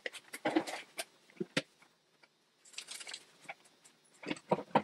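Irregular light clicks, taps and rustles of gloved hands handling a plastic brake-bleeder bottle and its hoses.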